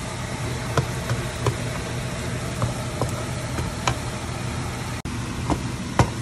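Minced garlic frying in butter in a nonstick pan, a steady sizzle with scattered sharp pops and clicks, about one or two a second, on its way to golden brown. Underneath runs the steady hum of a kitchen range-hood exhaust fan.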